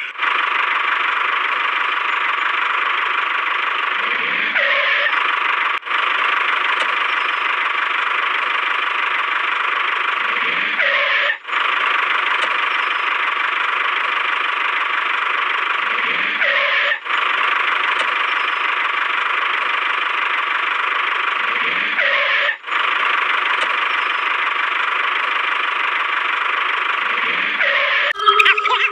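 Tractor engine sound effect running steadily as a loop, breaking off briefly and restarting about every five and a half seconds.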